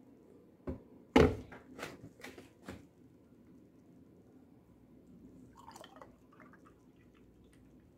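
A few sharp knocks in the first three seconds, the loudest about a second in, as a drinking glass and an almond-milk carton are handled; then almond milk pouring faintly into the glass from the carton, from about six seconds in.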